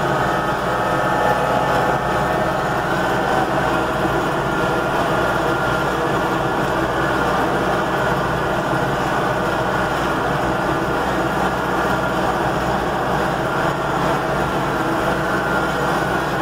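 A vehicle engine running steadily while moving slowly, an even hum that holds the same pitch and level throughout.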